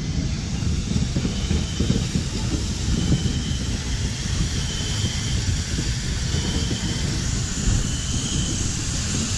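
Norfolk and Western 611, a J-class 4-8-4 steam locomotive, rolling slowly past with its train: a steady rumble with steam hiss.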